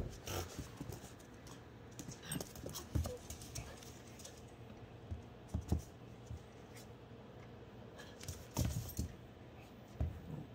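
Australian Shepherd puppies play-wrestling on a hardwood floor: scattered clicks of claws and paws on the wood, with soft thumps as they pounce and scramble.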